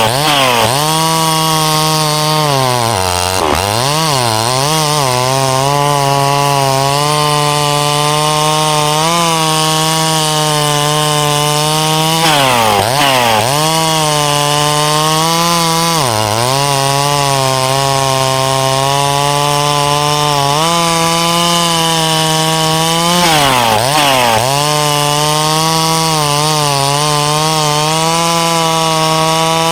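Two-stroke chainsaw at full throttle cutting through ponderosa pine rounds. The engine pitch dips sharply and recovers several times as the chain loads up in the wood, deepest about three to five seconds in and again around thirteen and twenty-four seconds.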